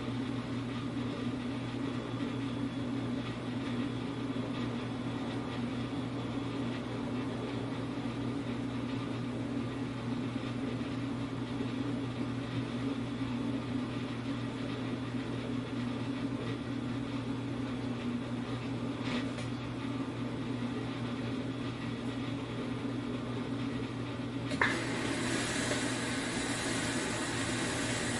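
Dishwasher running: a steady motor hum under a hissing wash noise. About 25 seconds in there is a sharp click, and the hiss turns louder and brighter.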